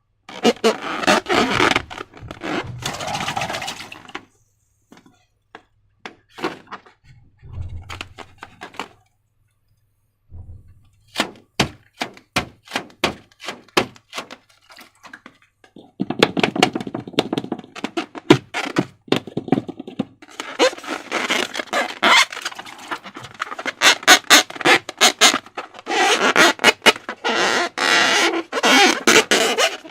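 Slime being squished, pressed and pulled by hand, giving quick wet, sticky clicks and crackles in bursts, with two short pauses.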